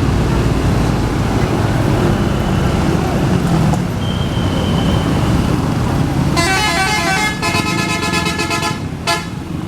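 A tour bus's 'telolet' multi-tone musical horn playing a quick stepping melody for about three seconds, starting past the middle, then one more short blast, over a steady low rumble of engines and street noise.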